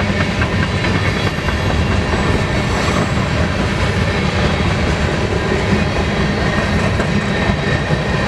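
BNSF freight train's cars rolling past close by: a steady rumble with a rapid clatter of steel wheels on the rails that does not let up.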